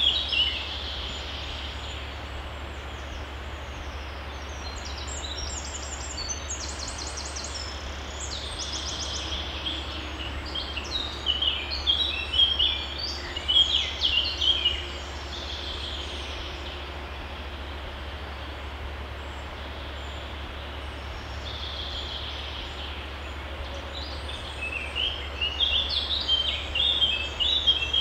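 Songbirds singing in bursts of quick, high chirping phrases, several times, over the steady rush of a stream.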